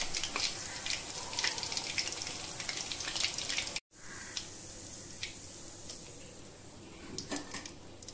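Hot oil sizzling and crackling as chicken 65 pieces deep-fry in a kadai, with dense rapid pops at first. The sound cuts out for a moment about four seconds in, then returns as a quieter sizzle with occasional pops.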